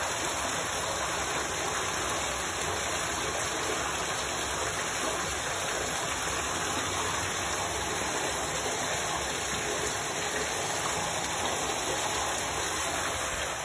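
Steady rushing noise with a water-like character, even and unchanging.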